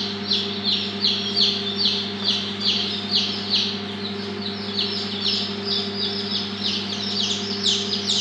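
Newly hatched chicks peeping continuously: a rapid run of short, falling peeps, about three a second, over a steady low hum.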